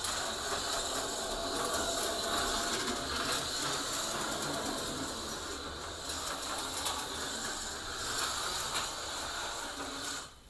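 HO-scale slot car running laps on plastic track, its tiny electric motor and gears whirring steadily. The sound cuts off abruptly near the end.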